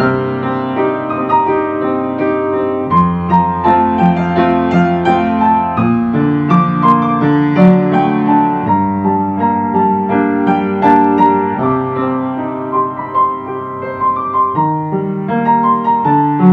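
Calm piano music: a melody of single notes over low bass notes that change about every three seconds.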